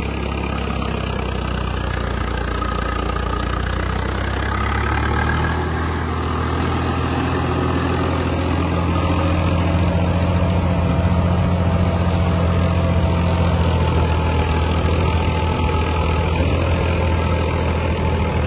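Swaraj 855 tractor's three-cylinder diesel engine working steadily under load while it pulls a 9-foot rotavator through the soil, with the rotavator's blades churning the earth. The hum grows a little louder about six seconds in. The engine holds its RPM without dropping.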